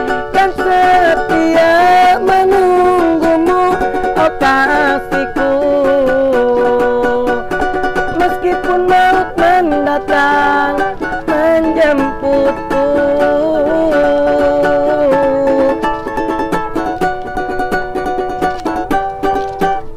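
A young street busker singing a song in Indonesian to his own strummed small stringed instrument, the melody running on without a break.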